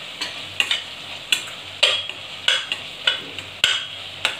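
Metal spoon scraping and tapping against a stainless steel pot while stirring a masala paste that sizzles as it fries in oil, with a stroke roughly twice a second.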